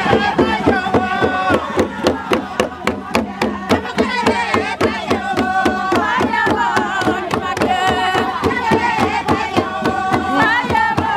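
Tifa hourglass hand drums beating a steady fast rhythm, about three strokes a second, with people singing and chanting along.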